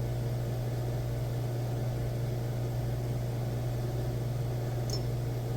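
A steady, low electric hum with a faint hiss, unchanging, and a small tick near the end.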